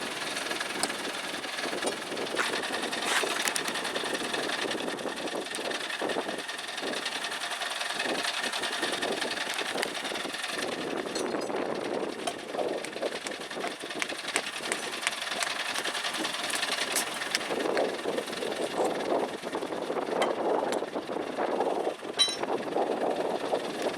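Diesel engine of an ACE 14XW hydra crane running under working load, with scattered knocks and rattles.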